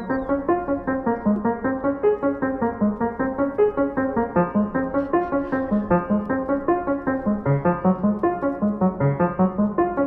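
Background piano music: a quick, steady stream of evenly spaced notes.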